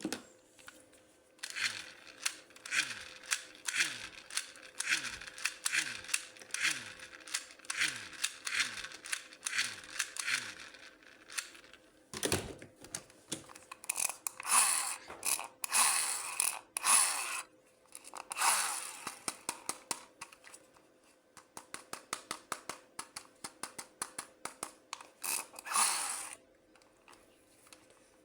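Plastic toy packaging and parts handled during an unboxing: a dense run of crinkling rustles and clicks, with a short lull about halfway and a quick series of small clicks near the end.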